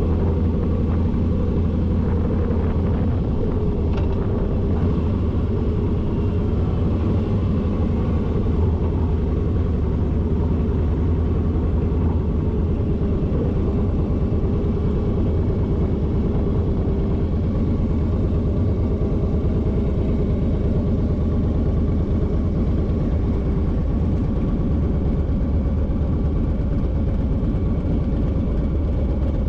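Motorcycle engine running steadily at an even pitch and level.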